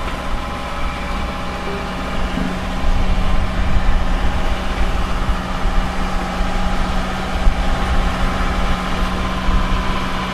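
A sailing catamaran's starboard engine running steadily while the boat motors: an even, unchanging drone with a low rumble beneath it.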